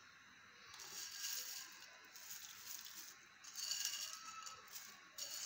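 Crispy fried onions dropped from a plate onto marinated meat in a glass dish: light rustling in four short spells.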